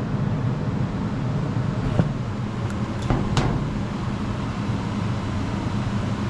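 A steady low machine hum, with a few short clicks and knocks about two to three and a half seconds in.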